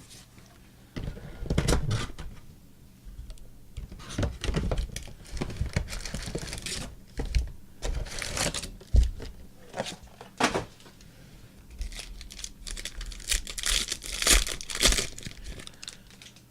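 Plastic trading-card packaging crinkling and tearing in irregular bursts as the boxes and packs are torn open.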